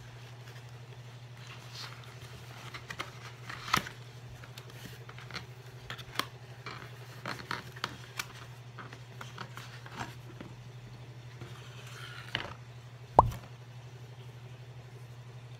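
Handling noise from a cardboard box and plastic packaging as a glass bottle is unboxed: scattered crinkles, scrapes and clicks. A single sharp knock near the end is the loudest sound. A steady low hum runs underneath.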